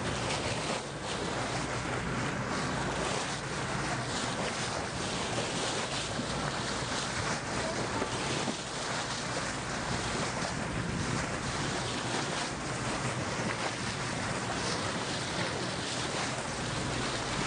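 Steady wind noise on the microphone over the rush and splash of sea water alongside a moving boat.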